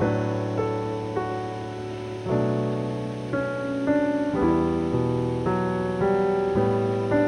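Background piano music: gentle chords and a melody, each chord fading before the next one about every two seconds.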